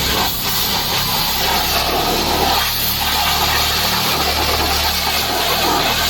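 Pressure washer running: a steady motor hum under a continuous hiss of water spray.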